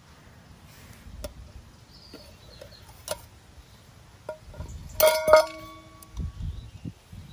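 A stainless steel camping pot and lid clinking: a few light clinks, then a louder clatter about five seconds in that rings briefly.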